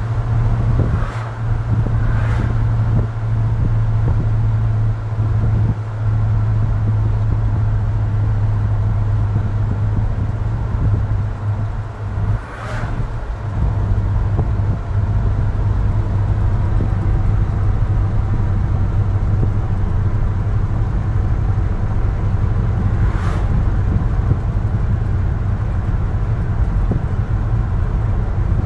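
The 1966 Ford F100 pickup's 302 (5.0 L) V8 running steadily at cruising speed, heard from inside the cab as a low drone with road noise. The drone eases off briefly about halfway through, then picks up again.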